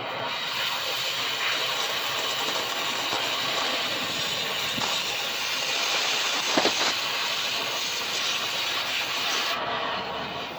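A loud, steady hiss, like gas or air rushing, cuts off abruptly near the end. A short knock sounds about two-thirds of the way through.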